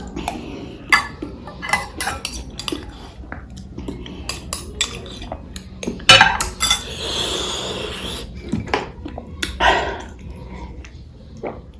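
Eating at a plate: scattered clinks and knocks of dishes and cutlery, with a longer hissing noise for about two seconds past the middle.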